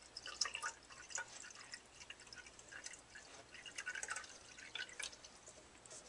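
Water poured in a thin stream from a paper cup into a Keurig coffee brewer's water reservoir, faintly trickling and dripping in small irregular patters.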